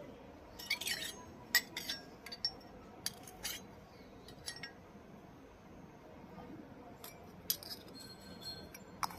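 Small pieces of a miniature toy kitchen set clinking and tapping together as they are handled, with light ringing clinks in two clusters separated by a few quieter seconds.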